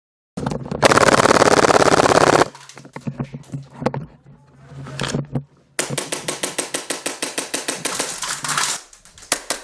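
Airsoft guns firing full-auto bursts. The first burst, about two seconds long, is the loudest. After a few scattered single shots comes a longer burst of about ten shots a second, and a short burst near the end.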